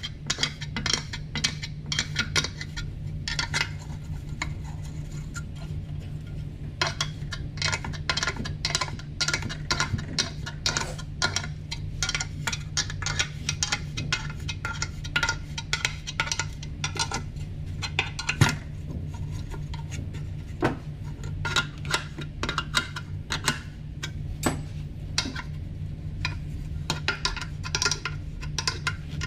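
Hand tools and small metal engine parts clicking and clinking irregularly as they are handled during intake-manifold assembly, with one sharper, louder click a little past the middle. A steady low hum runs underneath.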